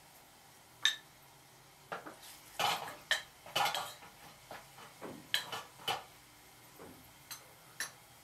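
Metal spoon stirring and scraping in a small metal pot, with a sharp ringing clink about a second in, a run of scrapes and clinks in the middle, and two short taps near the end.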